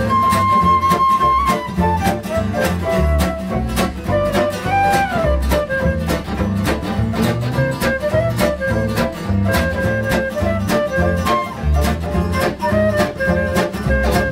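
Acoustic samba-manouche band playing a samba: guitar strumming a steady rhythm over upright bass, under a lead melody of held and sliding notes.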